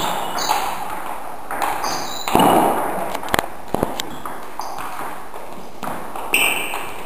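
Table tennis ball clicking off paddles and the table during a rally, with a few sharp clicks in quick succession a little past halfway. Short high squeaks come in between.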